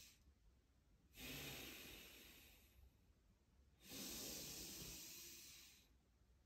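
Slow, deep breaths of a man doing chi gung: two long, airy breaths. Each starts sharply and fades away over one and a half to two seconds, with a quiet gap between them.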